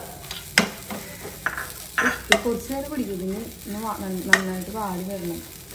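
Metal slotted spatula scraping and tapping a non-stick frying pan, stirring grated coconut and whole spices as they roast in coconut oil with a soft sizzle. There are several sharp scrapes and clicks of metal on the pan.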